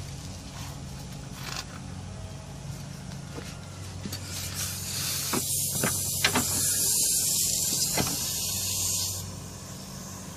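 Pneumatic impact wrench running a bolt in on the lower control arm's mounting bracket: a loud rush of air hiss lasting about four and a half seconds, with a few sharp clicks, cutting off near the end.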